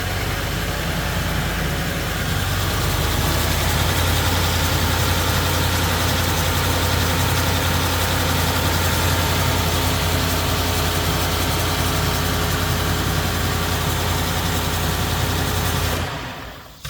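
Ford F-150's 5.0-litre V8 idling on a cold start, a steady whine running over the engine note. The engine cuts off about a second before the end.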